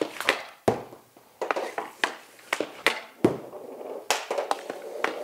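Hockey pucks shot with a stick off a plastic shooting pad at a canvas target tarp: a rapid, irregular series of sharp clacks as the blade strikes puck after puck and the pucks hit the tarp and drop.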